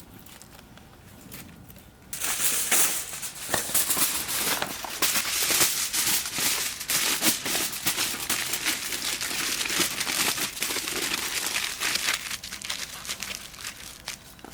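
Dense, irregular crinkling and crackling that starts abruptly about two seconds in and stops shortly before the end.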